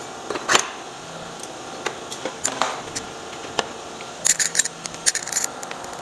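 Clicks and light knocks of metal vacuum accessories being handled and fitted together: a stainless-steel floor wand pushed into the hose cuff. A quick cluster of sharp clicks comes about four seconds in.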